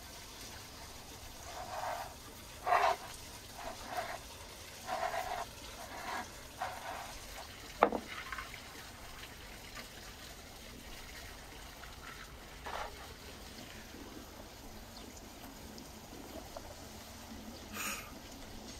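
Soft, irregular pats and taps of hands working and pressing rounds of bread dough on a floured wooden board, with one sharp knock about eight seconds in, over a steady faint outdoor hiss.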